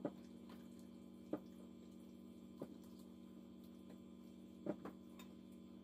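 Steady low electrical hum with a few faint short taps, from hands working a raw whole chicken in a glass baking dish.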